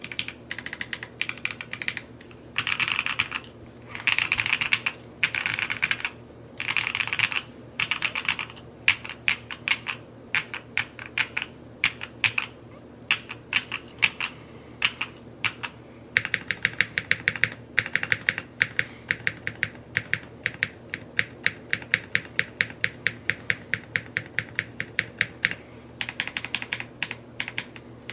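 Typing on a Neo65 Cu 65% mechanical keyboard. For the first several seconds it comes in quick flurries of keystrokes, each about a second long with short pauses between them. After that it settles into steady, fast typing of several keystrokes a second.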